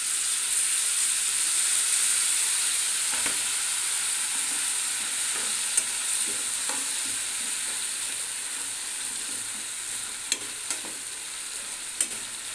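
Rice sizzling in hot oil with peanuts and onion in a non-stick frying pan as it is stirred in. The hiss is loudest just after the rice goes in and slowly dies down, with a few sharp clicks of the wooden spatula against the pan.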